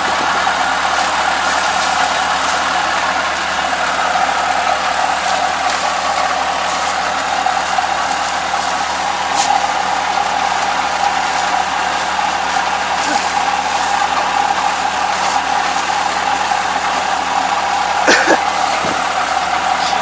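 Kubota ARN460 combine harvester running steadily, its engine and threshing works turning over while rice stalks are hand-fed into the header. A short sharp knock about 18 seconds in is the loudest moment.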